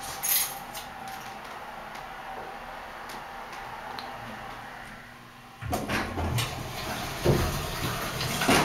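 Faint steady hiss, then about two-thirds of the way in a burst of rustling, knocks and clunks as the camera is picked up and moved.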